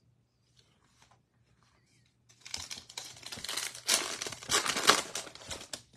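Crinkling and tearing of a foil trading-card pack wrapper as the pack is opened: a few faint ticks, then about three and a half seconds of dense crackling starting a little over two seconds in.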